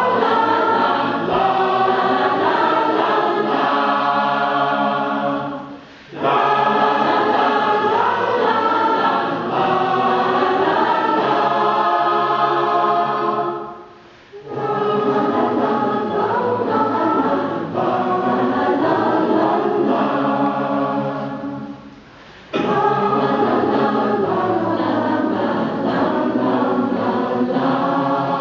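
A mixed choir of men's and women's voices singing together in sustained phrases of about eight seconds each, with a brief drop between phrases.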